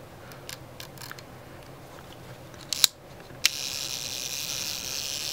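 Lomo Lubitel 166B's lens-mounted controls clicking lightly as they are set, with two sharp clicks about three seconds in. After the second click the camera's mechanical self-timer starts a steady high buzz.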